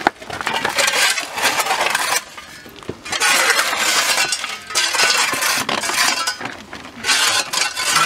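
Several metal shovels scooping and scraping dry, gravelly soil and tossing it into a planting hole, a gritty scraping in long bursts with a pause about two seconds in.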